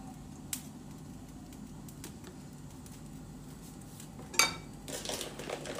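Kitchenware being handled: a sharp clink about four seconds in, followed by about a second of light clattering, over a steady low hum.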